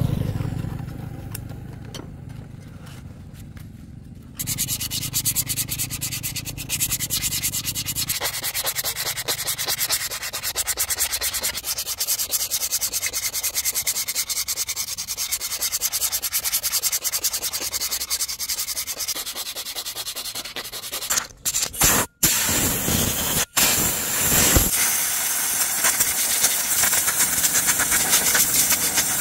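Power tool sanding metal: a rotary abrasive starts up about four seconds in and runs as a steady, fast, even rasp, broken by a few brief cut-outs about three-quarters of the way through.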